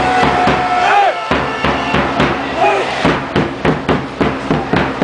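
Ice hockey fans chanting in the rink to a steady drum beat, about three beats a second in the second half; a long held note breaks off about a second in.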